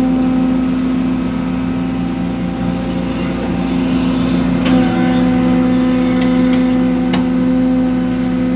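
Excavator's diesel engine running steadily under load, a loud even hum that shifts slightly in pitch a little under five seconds in, with a few short sharp clicks.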